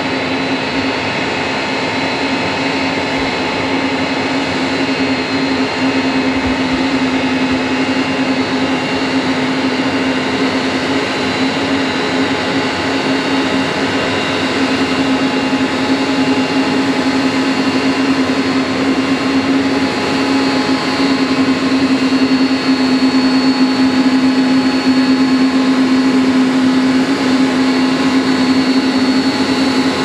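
Jet airliner engines running at taxi power: a steady whine with a strong low hum, slowly growing louder.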